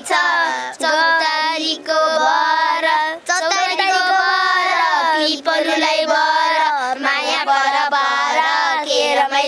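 Children singing a Nepali song together, their voices held and sliding through the melody.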